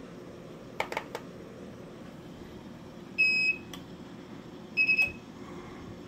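A few quick clicks about a second in, then two short, high electronic beeps about a second and a half apart, each a single steady tone.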